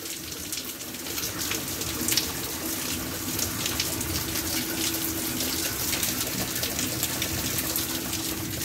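Fairly heavy rain falling steadily: a dense hiss of rain with many separate drops splattering close by. A faint steady hum runs underneath.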